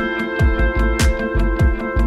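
Background music with a steady beat: deep kick drums dropping in pitch under sustained chords, with a sharp snare-like hit about once a second.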